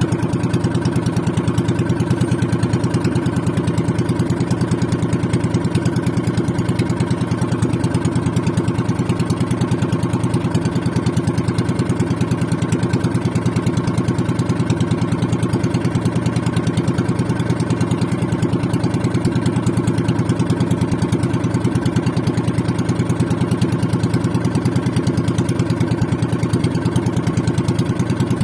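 Fishing boat engine running steadily with a fast, even chug.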